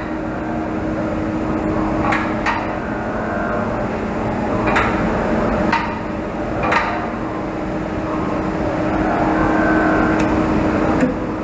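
Sharp metal knocks, about six spread over the first ten seconds, over a steady machine-shop hum with a constant low tone.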